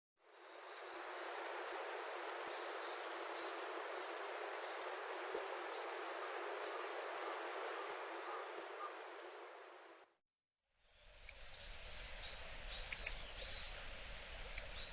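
Hawfinch giving short, sharp, very high call notes, about ten of them spaced irregularly, over a steady background hiss. After a short break a few more brief, sharp notes follow.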